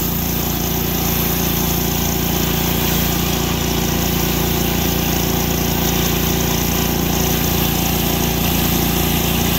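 Pressure washer running steadily, feeding a flat-surface cleaner whose spinning spray bar scrubs wet concrete: a constant engine drone under an even water hiss.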